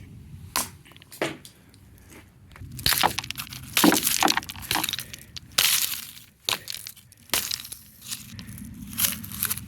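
A part from inside a carbon monoxide alarm being smashed apart: sharp cracking impacts, two single hits in the first second or so, then a cluster of louder, longer breaking and crunching hits through the middle and one more hit near the end.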